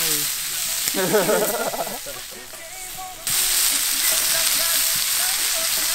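Pork sizzling hard in a cast-iron skillet over a wood fire, with metal tongs turning the pieces. The sizzle dies down about two seconds in and comes back suddenly a second later.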